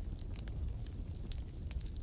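Wood fire crackling: burning logs and glowing embers giving off frequent small pops and snaps, scattered irregularly, over a low steady rumble.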